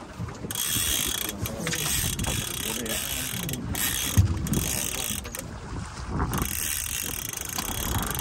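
Fishing reel ratcheting, starting sharply about half a second in.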